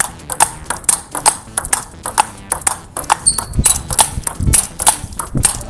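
Table tennis rally: the plastic ball clicks sharply off a racket faced with Tibhar Evolution MX-D rubber and off the table, about three times a second, as the player test-hits forehands. A few low thuds come in the second half.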